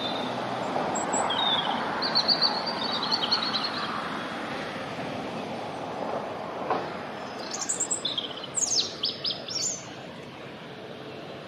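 European robin singing two phrases of high, thin notes, the second, about seven seconds in, ending in quick falling sweeps, over the steady noise of heavy road traffic.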